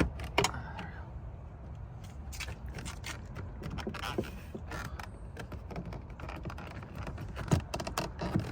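Light clicks and rattles of hand tools and plastic trim parts being worked loose on a car door, with a few sharper knocks near the start and near the end.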